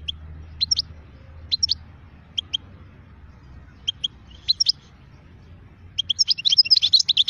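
European goldfinch calling in short high chirps, spaced a second or so apart, then breaking into a fast twittering song about six seconds in.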